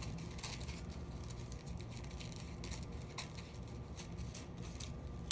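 Small scissors snipping through a folded stack of tissue paper: a series of faint, crisp snips.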